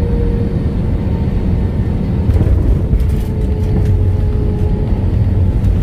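Steady low rumble inside an airliner's cabin as the jet rolls along the runway and taxiway after landing, with a faint steady whine over it and a few light rattles about halfway through.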